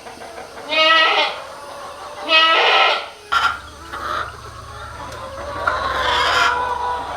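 Goats bleating, three separate calls, the last one longer, with a faint low hum setting in partway through.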